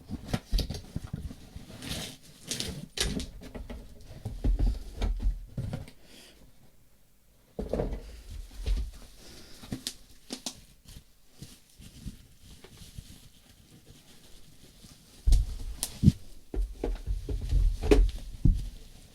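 Hands handling packaging and items on a table: irregular rustling, clicks and knocks with low thumps, quiet for a second or so midway, then a busier run of knocks and thumps near the end.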